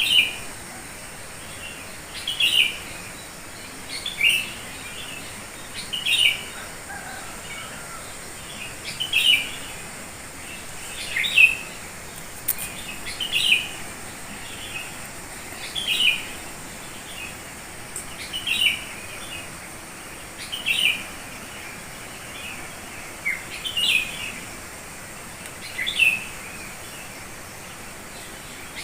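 A wild bird singing the same short, sharp chirping phrase again and again, about one every two seconds, over a faint steady high hiss.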